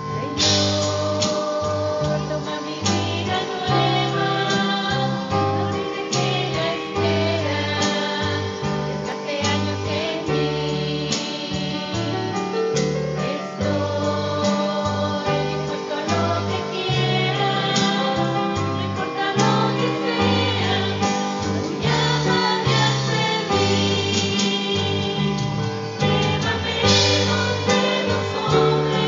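Small church choir, mostly women's voices, singing a Catholic hymn in Spanish with live accompaniment from guitar, keyboard and saxophone over a steady walking bass line.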